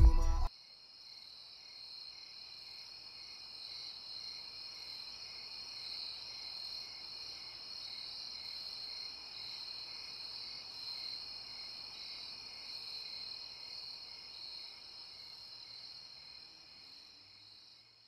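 Music cuts off abruptly about half a second in, leaving faint, steady night-time chirping of crickets, a continuous high-pitched trill that slowly fades out near the end.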